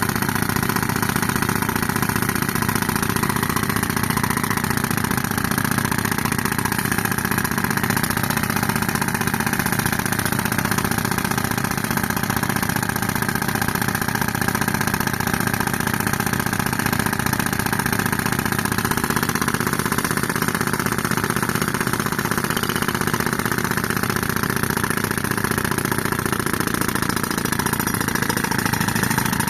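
Tractor engine running steadily at constant speed, driving an air compressor.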